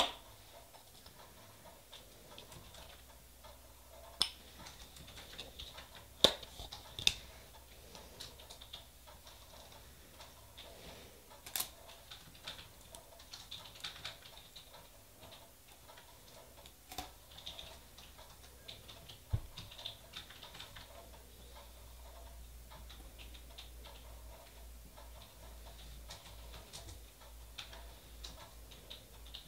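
Faint, scattered light clicks and taps with a few short scrapes from nail-stamping tools (scraper, stamper and metal image plate) being handled and worked. A handful of sharper taps stand out, mostly in the first third.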